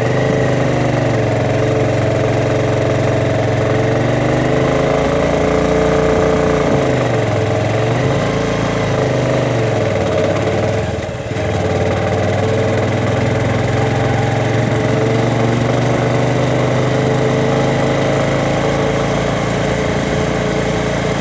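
Vehicle engine running steadily while driving, its pitch sagging and climbing back about a third of the way in, with a brief drop in level about halfway through.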